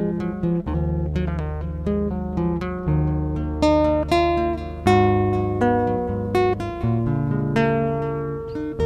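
Instrumental acoustic guitar music: plucked notes and strummed chords ringing out one after another.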